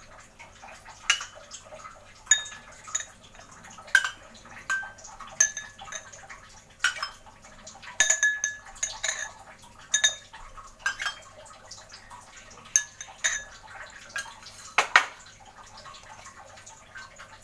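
A metal spoon clinking and tapping against glass tumblers while chocolate syrup is spooned down their insides: short ringing clinks at irregular intervals, with a louder knock about 15 seconds in.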